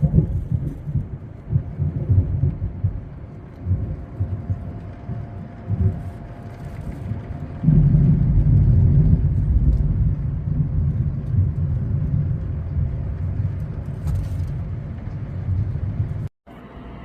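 Thunderstorm noise: a loud, uneven low rumble that swells about eight seconds in and stops abruptly near the end.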